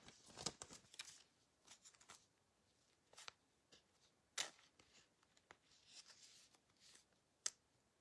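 Faint rustling and light clicks of trading cards being handled off-camera, with a few sharper taps, the clearest about four and a half seconds in and near the end.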